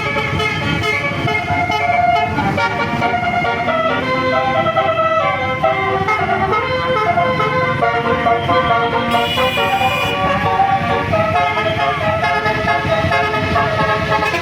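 Bus's Basuri telolet multi-note air horn playing a melody, its notes stepping quickly from pitch to pitch.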